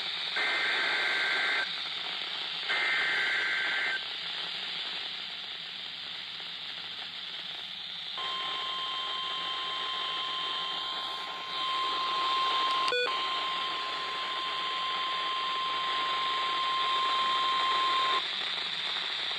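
Emergency Alert System SAME header: two short bursts of shrill digital data tones, then a steady 1050 Hz weather-radio warning alarm tone held for about ten seconds, all over constant radio static. A sharp click sounds partway through the tone.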